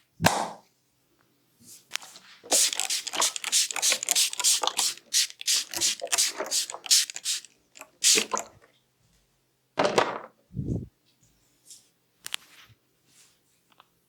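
Massage strokes by hand on oiled skin: a quick run of about five sharp strokes a second for some six seconds, then one single heavier stroke.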